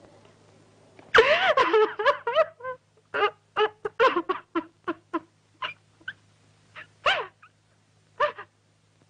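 A dog yelping and whining. A quick run of high, arching yelps starts about a second in, followed by short separate yelps two or three a second that thin out near the end, all over a steady low hum.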